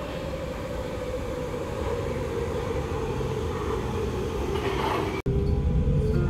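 Nuremberg U-Bahn train pulling into an underground station: a steady rumble grows louder under a whine that falls slowly in pitch. A little after five seconds it cuts abruptly to the louder rumble heard inside the car.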